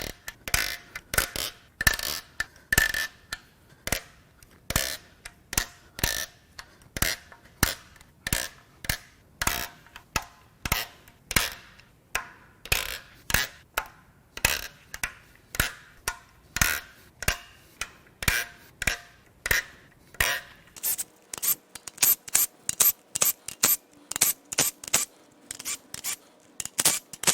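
Hand ratchet clicking in steady, repeated strokes, about two to three sharp clicks a second, while loosening the camshaft cap bolts on a BMW S52 cylinder head. The clicks get brighter and quicker about three quarters of the way through.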